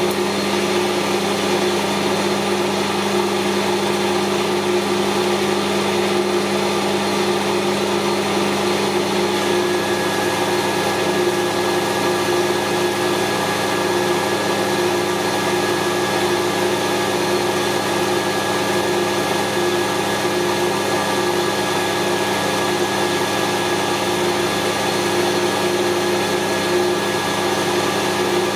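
Metal lathe running steadily while a facing cut is taken across the end of steel round stock, cleaning off rusty scale. It is a constant machine hum with a couple of held tones, and a thin high whine comes in about ten seconds in.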